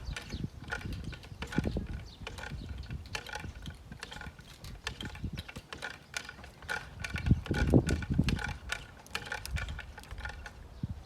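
Yale hand winch's ratchet clicking irregularly as it is cranked to haul a log, with a few heavier knocks about two-thirds of the way through.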